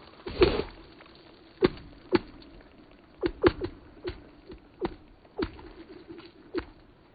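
Rocks thrown onto thin, newly frozen marsh ice: about a dozen sharp impacts as they land and bounce, each followed by a brief ringing tone from the ice.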